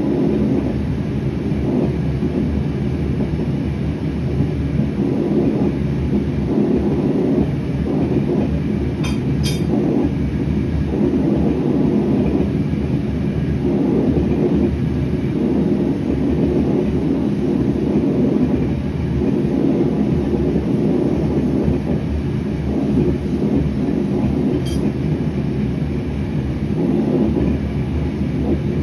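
Gas forge burner roaring steadily, with a few faint light clicks about nine seconds in and again near the end.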